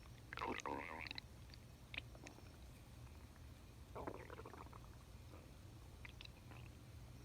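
A man's stomach growling: two rumbles, a louder one lasting just under a second near the start and a softer one about four seconds in, over a steady low hum.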